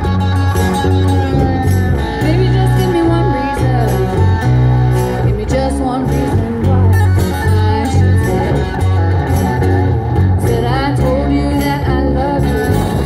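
A live acoustic band playing a song through floor PA speakers: strummed acoustic guitars over a steady bass line, with a singer.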